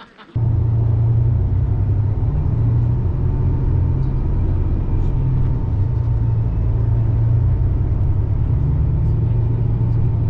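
Steady low drone of a tour coach's engine and tyres, heard from inside the moving coach, cutting in abruptly just after the start.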